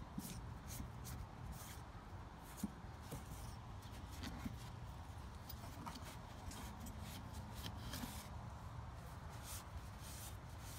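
Microfiber cloth wiping degreaser residue off painted metal and engine-bay parts: quick, irregular rubbing strokes over a low steady rumble.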